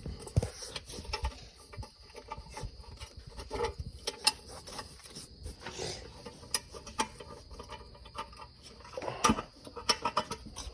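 Irregular light clicks and taps over a faint steady high-pitched hiss.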